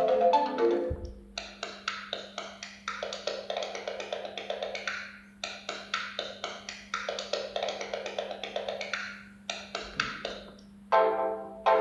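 Ringtones from a Gigaset CL390 cordless phone: one melody ends about a second in, then a quick percussive tune of short, wood-block-like notes plays, and a new ringtone starts near the end. A steady low hum runs underneath.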